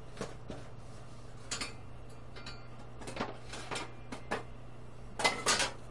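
Rummaging through parts by hand: scattered light clicks and knocks as items are moved about, with a short burst of clatter about five seconds in, the loudest part, over a steady low hum.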